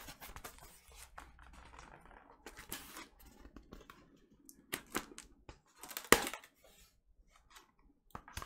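Cardboard vinyl-record mailer being cut open with scissors and handled: scattered snips, scrapes and taps of cardboard, with a sharp knock about six seconds in.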